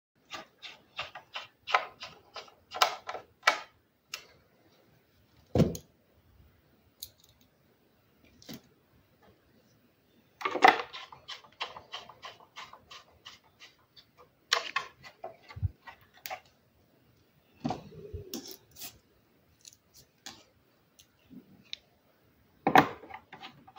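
Small hand screwdriver driving screws through a plastic keyboard case into its plate: runs of quick, sharp clicks, about four or five a second, as the screws are turned, three times with gaps between. A few duller knocks from the case being handled come in the gaps.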